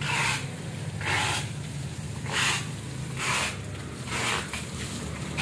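Footsteps scuffing on a wet tiled floor, about one a second, over a steady low hum.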